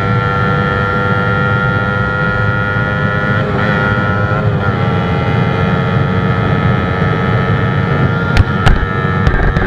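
Kawasaki Ninja 250's parallel-twin engine running at high, steady revs on the move, with road and wind rumble. Its pitch wavers briefly around the middle, and a few sharp clicks come near the end.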